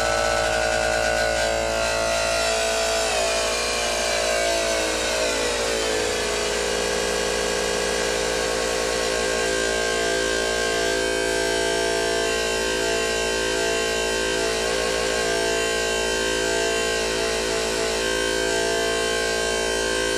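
Analog modular synthesizer drone: an XR-VCO sawtooth run through a Magnus Danielson sawtooth phase shifter, a buzzy tone thick with overtones. It glides down in pitch a few seconds in, then holds steady with a slow, regular pulsing as the wave's cut point is shifted.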